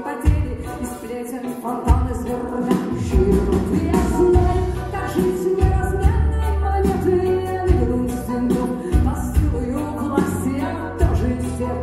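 Live band playing a song: a woman singing lead over keyboards, electric guitar, a deep bass line and a steady beat.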